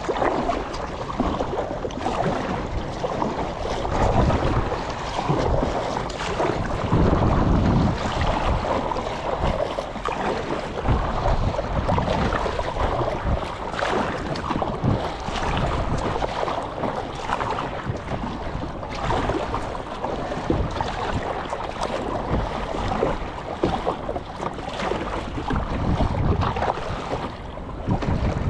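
A sit-on-top kayak being paddled on open sea: paddle strokes and water splashing and slapping against the hull, with wind buffeting the microphone in gusts.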